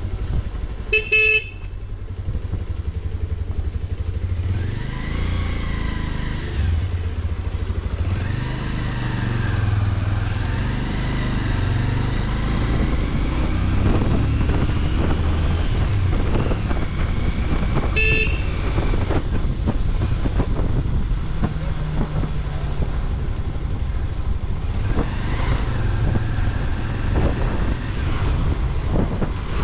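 Bajaj Avenger cruiser motorcycle's single-cylinder engine running at low speed, its note rising and falling with the throttle. A horn beeps briefly about a second in and again past the middle.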